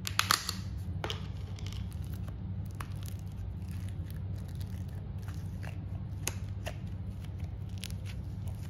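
Pink slime being dug out of a small plastic tub with the fingers and squeezed by hand: a sharp plastic click about a quarter second in, then scattered soft clicks and crackles. A steady low hum runs underneath.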